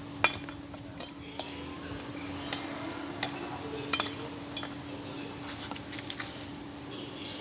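Metal objects clinking and knocking irregularly, about ten sharp hits with the loudest near the start, over a steady low hum.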